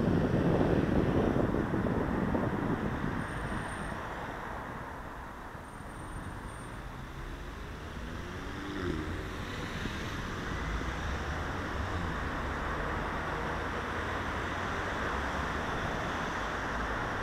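Road traffic passing at a junction. A car goes by close in the first three seconds, the traffic thins for a few seconds, then a steady rumble of several cars moving through builds again.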